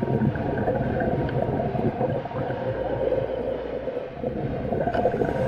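Muffled underwater noise picked up by a camera in its housing: a steady drone with gurgling through it, and a couple of faint ticks.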